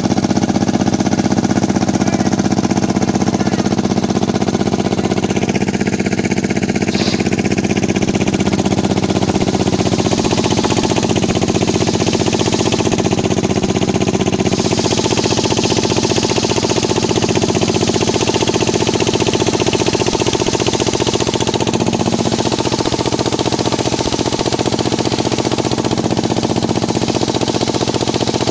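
Circular sawmill rig running steadily, its motor giving a constant loud mechanical drone.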